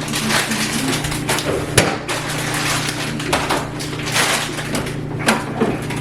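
Crinkling and rustling of a plastic bagged-salad kit being handled, with a sharp knock just before two seconds in and another near the end.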